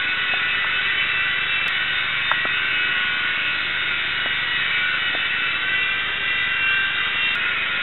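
Palm-sized micro RC helicopter's small electric motors and rotor blades whining steadily in flight, with one brief click a little over two seconds in.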